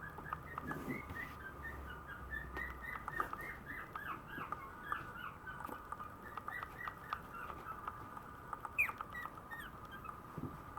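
Maltese puppy whimpering: a continuous run of short high squeaks, each dropping in pitch, several a second, over a faint steady tone.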